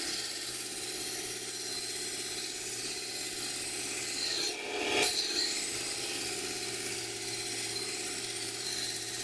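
Mini electric belt grinder running with a knife blade rubbing along its abrasive belt: a steady grinding hiss over a low motor hum, briefly louder about five seconds in.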